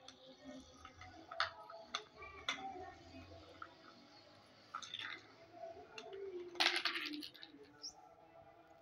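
Sharp taps and clicks of a small ball knocked about on a hard stone floor by a kitten's paw, a few single clicks spread out, then a louder clatter of several clicks about seven seconds in.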